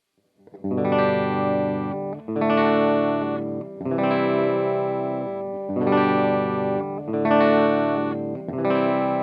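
Electric guitar played direct through a Fender-style clean amp preset on a compact amp-modelling pedal with cabinet simulation: six strummed chords, each held and let ring for about a second and a half.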